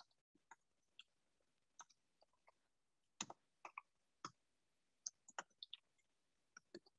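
Faint, irregular clicking of computer keyboard keys being typed on, a dozen or so separate keystrokes.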